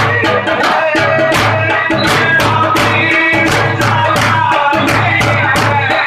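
Several daf frame drums beaten together in a fast, steady rhythm, several strikes a second, with a chanted vocal over them.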